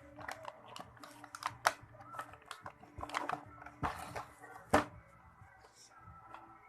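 Toy train set pieces and packaging being handled: scattered clicks and rustling, with two sharper clicks, one under two seconds in and one near the five-second mark.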